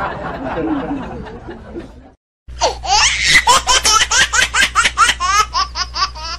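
A laugh sound effect fades out, then after a brief cut a new one starts: rapid, high-pitched laughter of about four or five pulses a second over a steady low hum, which stops abruptly.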